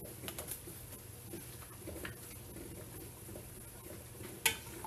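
Faint scattered ticks from the pot, then near the end a single sharp metal clank with a brief ring as a utensil strikes the aluminium pot, the start of stirring the seasoned tripe.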